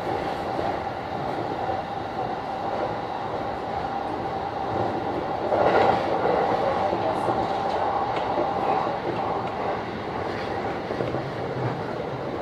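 JR Saikyo Line electric commuter train running at speed between stations: steady rumble and rail noise with a constant hum, swelling louder about six seconds in.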